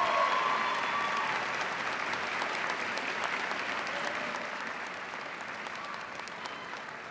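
Audience applauding, loudest at the start and slowly dying away, with a couple of voices calling out over the clapping in the first second.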